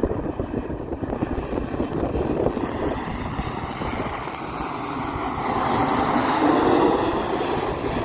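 Boeing 737-800's CFM56 jet engines on landing approach, growing into a loud roar with a faint whine as the airliner passes low overhead about five seconds in. Wind gusts buffet the microphone.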